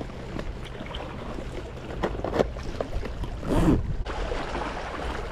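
Seawater washing against shoreline rocks, with a low wind rumble on the microphone. A few small clicks and a short rustle about three and a half seconds in come from tackle being handled.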